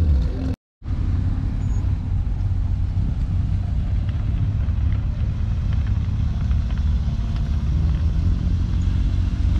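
Car engine running steadily at low revs as a classic car drives slowly off, after a brief total dropout in the sound less than a second in.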